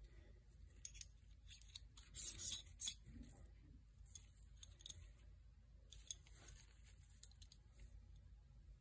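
Quiet handling sounds of a clip-on phone lens attachment in nitrile-gloved hands: scattered light clicks and scraping rubs, with a louder scrape and two sharp clicks about two to three seconds in.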